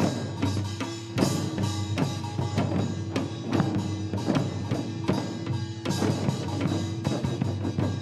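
Korean traditional drum music for the Jindo bukchum drum dance: buk barrel drums struck with sticks in quick, dense strokes, over steady held low tones from the accompanying ensemble.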